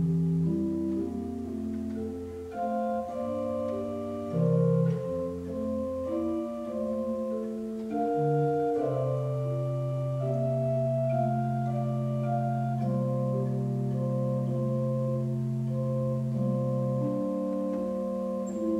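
Pipe organ playing a slow piece in sustained chords, with a long held low pedal note about halfway through.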